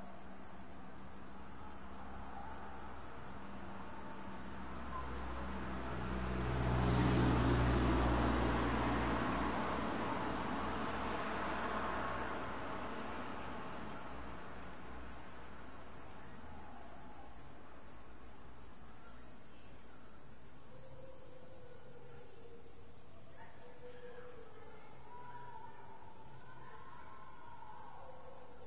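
Crickets chirping in a steady, fast, high-pitched pulsing chorus throughout. About a quarter of the way in, a low rumble swells, then slowly fades away.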